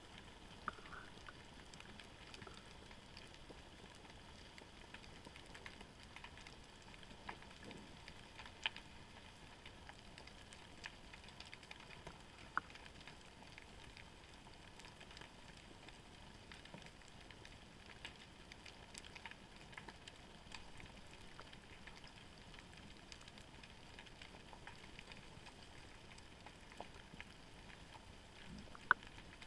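Faint underwater ambience picked up by a camera in its housing hanging in the sea near the seabed: a steady hiss with scattered sharp clicks and crackles, a few of them louder, one near the end.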